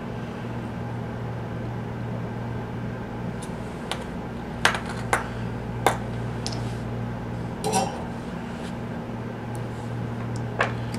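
Light metallic clicks and clinks, about seven spread over several seconds, from the soldering iron and small tools being handled and set down, over a steady low electrical hum.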